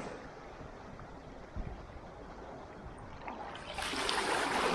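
Shallow seawater lapping and washing over a rocky reef flat, with a louder surge about four seconds in as a small wave breaks over the rocks.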